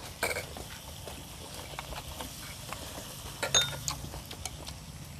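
Quiet mealtime sounds: a few light clicks and taps of chopsticks against dishes and a tabletop grill pan, over a low steady hum. One tap, about three and a half seconds in, rings briefly.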